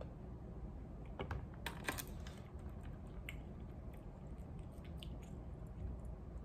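A person drinking from a plastic soda bottle and lowering it: a few faint clicks and mouth sounds about one to two seconds in, then a few fainter scattered clicks over a low steady room hum.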